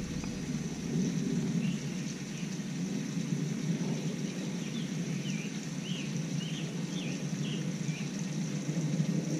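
Steady low rumbling noise with a string of short bird chirps over it, several quick rising and falling notes in the middle of the stretch.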